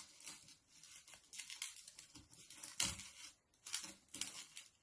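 Faint dry rustling and crackling of loose bird seeds as a peanut-butter-coated cardboard tissue roll is rolled through them, in a few irregular bursts, the clearest about three and four seconds in.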